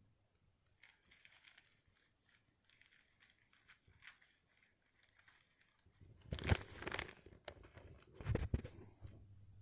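Plastic crinkling and rustling as an HD DVD case and its wrapping are handled, faint at first, then two louder bursts of rustling and knocking in the second half.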